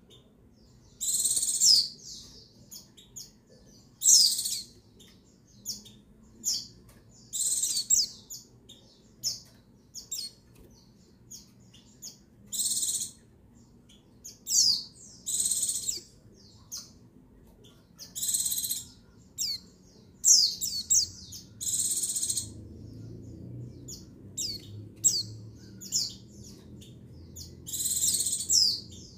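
Female white-eye (pleci) calling: short, high chirps and brief trilling bursts about a second long, repeated every second or two. This is a female's call used to rouse male pleci into singing.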